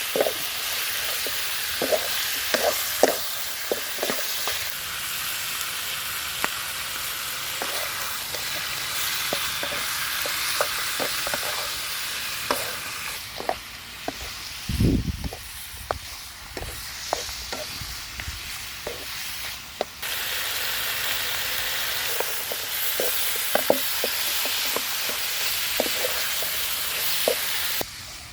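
Food sizzling in a hot pan while a utensil stirs it, knocking and scraping against the pan many times. The sizzle drops off for several seconds midway and comes back louder, and there is one dull low thump about halfway through.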